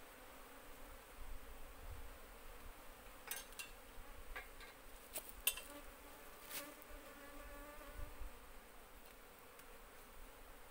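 Cluster of Asian honey bees (Apis cerana) on a wooden hive board, buzzing steadily and faintly. A few sharp clicks and knocks come between about three and seven seconds in.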